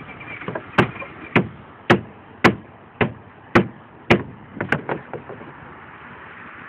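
Hammer driving nails into plywood roof decking: about seven even, sharp blows roughly half a second apart, then a few quicker, lighter taps.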